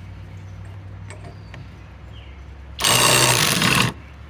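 Flex FX1431-A cordless compact impact wrench hammering on a hitch ball nut in one burst of about a second, starting a little before the middle.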